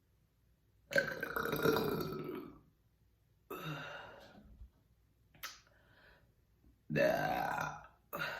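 A person giving three long, loud burps a couple of seconds apart, the first and last the strongest, brought up by carbonated ginger ale.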